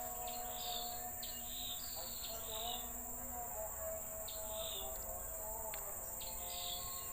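Tropical rainforest insects: a steady high-pitched drone with short chirps repeating about twice a second, over fainter lower whistling tones.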